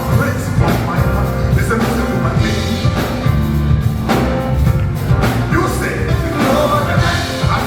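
Live gospel worship music from a band, with bass and drums and singing.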